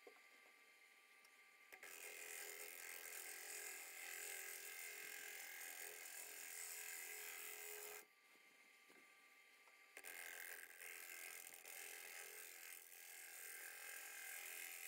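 Gouge cutting the outside of a spinning macrocarpa pine bowl on a wood lathe, heard as a hissing cut. The cut starts about two seconds in, stops near eight seconds, and starts again about two seconds later for a second pass. A faint steady lathe hum carries on beneath, and through the gaps.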